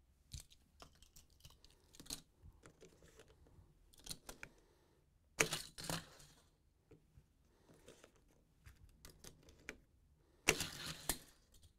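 Toy-car run on a Hot Wheels plastic track set: scattered clicks and knocks as a hand works the spring-loaded Track Builder launcher, with a louder clatter of a die-cast car fired down the plastic track about five and a half seconds in and again near the end.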